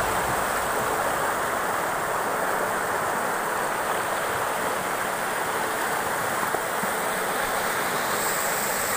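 Shallow river rapids rushing steadily over a low ledge of rocks, close white water making an even, unbroken rush.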